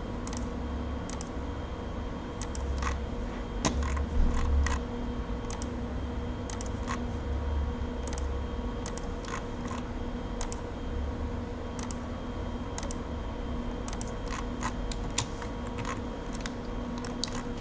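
Irregular clicks of a computer keyboard and mouse, a few every couple of seconds, over a low steady hum.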